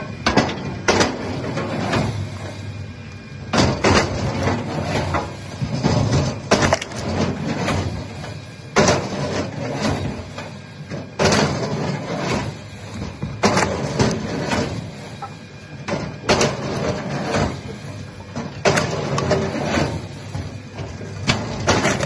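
Wood chipper breaking up wood: irregular loud cracks and crunches every second or two over the machine's steady low drone.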